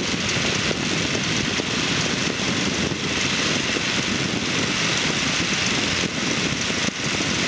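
Microlight aircraft in cruising flight: engine, propeller and wind noise at a steady level, heard inside the cockpit.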